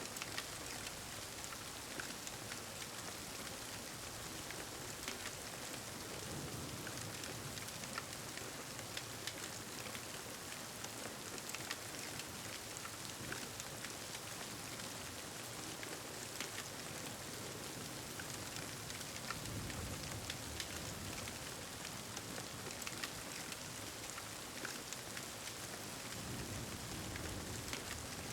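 Steady rain falling, with many small drop ticks, and soft low rumbles of distant thunder that swell up a few times.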